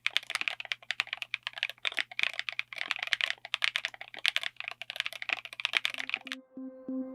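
Typing on a mechanical keyboard fitted with linear switches: fast, irregular keystrokes with a steady low hum beneath. The typing stops about six seconds in, and electronic music with a pulsing low tone starts.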